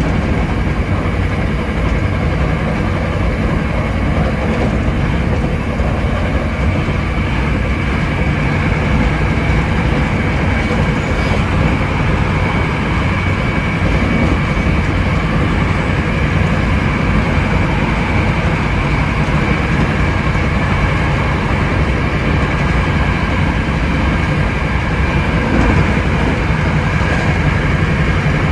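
Hankyu 7300 series electric train running at a steady speed, heard from the front cab: a steady rumble of wheels on rail with a steady high whine over it.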